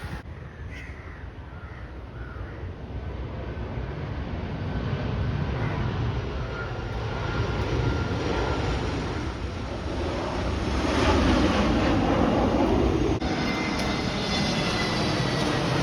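Airplane flying past, its engine noise growing steadily louder to a peak about eleven seconds in, with a faint high whine riding on the rush.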